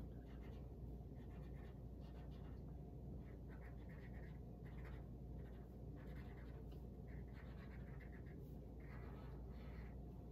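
Marker drawing on paper: a series of short, faint scratching strokes as lines are drawn, over a low steady hum.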